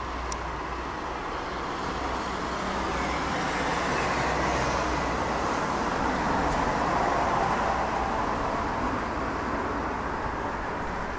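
Distant roar of a twin-engine Airbus A321 jet airliner cruising at high altitude, a steady rumbling hiss that swells gently and eases again.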